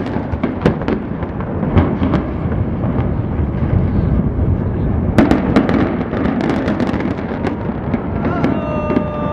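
Explosive demolition charges firing in a long irregular string of sharp cracks over a continuous low rumble as a concrete building is imploded. A steady pitched tone comes in near the end.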